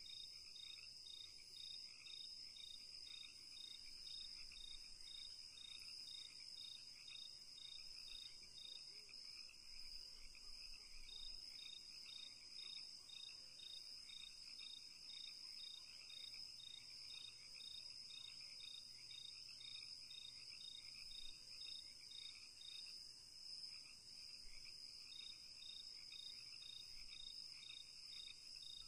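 Faint chorus of crickets and other insects: one cricket chirps in an even pulse of about two to three chirps a second over a steady, high, continuous trilling.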